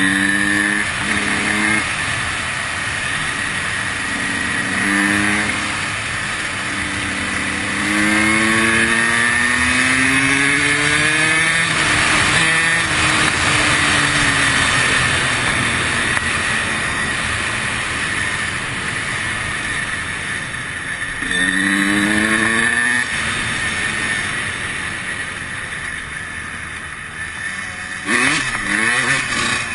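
2003 Honda CR125's 125cc single-cylinder two-stroke engine revving out again and again as the bike accelerates, its pitch climbing in several long sweeps, with a steady rushing noise underneath.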